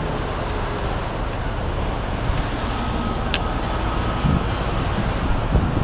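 City street traffic noise: a steady wash of passing cars and street sound, heard while walking along a busy avenue, with one sharp click about three and a half seconds in.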